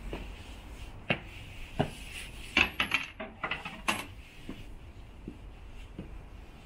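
Irregular sharp clicks and knocks of hard objects, a quick cluster of them about two and a half to four seconds in, over a low steady background hum.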